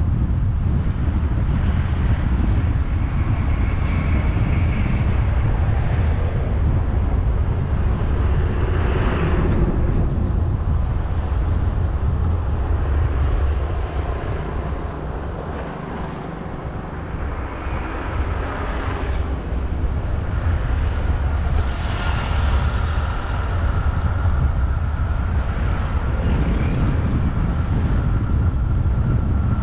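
Vehicle driving through city traffic: a steady low rumble of road and wind noise, with other vehicles swelling past a few times and the rumble easing off briefly about halfway through.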